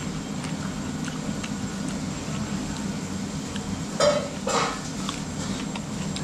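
A person eating sliced cucumber from a plate: faint clicks of fingers and slices against the plate over a steady low hum, with two short louder sounds about four seconds in.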